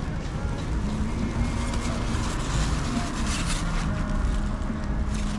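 Steady low rumble of outdoor street background noise, with rustling of plastic bags and foam takeaway boxes being handled in the middle.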